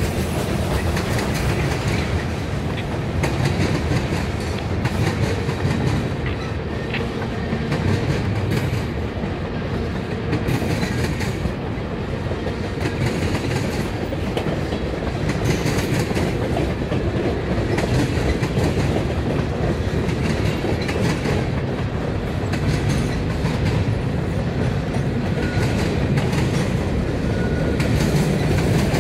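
Cars of a Norfolk Southern mixed freight train, tank cars and boxcars, rolling past at close range: a steady rumble with wheels clicking over the rail joints.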